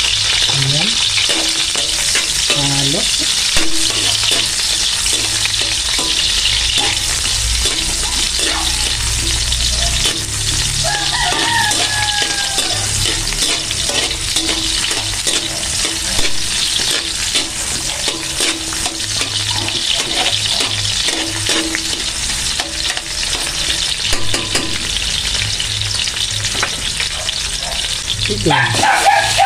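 Garlic and red onion sizzling in hot oil in a metal wok, with a metal spatula scraping and clicking against the pan as they are stirred.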